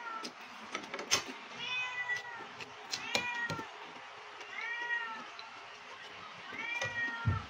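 A cat meowing repeatedly, about five meows a second or two apart, each rising and then falling in pitch. A few light clicks of cutlery on a plate come between them.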